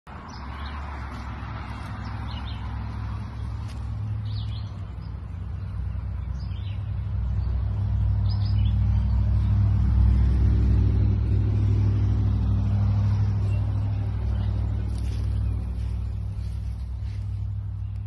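A motor vehicle's engine runs with a steady low hum that swells to its loudest about halfway through, then eases off. Birds chirp briefly now and then over it.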